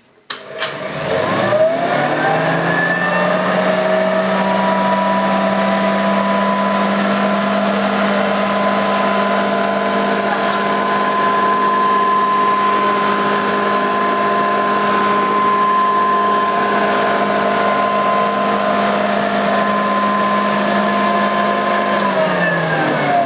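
Nilco 271 commercial upright vacuum cleaner's motor starting and winding up to full speed with a rising whine over about two seconds, then running steadily as it is pushed over a hard floor strewn with rolled oats, rice, flour and sugar going through its fan. Near the end it is switched off and the whine falls away as it winds down.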